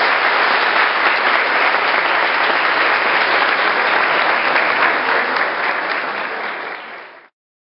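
A church congregation applauding, a dense steady clapping that fades away and then cuts off abruptly near the end.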